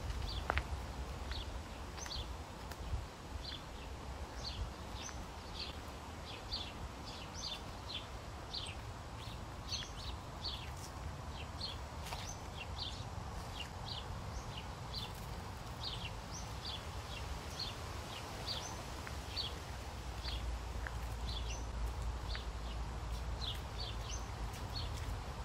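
Small birds chirping in woodland: short, high calls repeated about once or twice a second throughout, over a steady low rumble that grows a little stronger near the end.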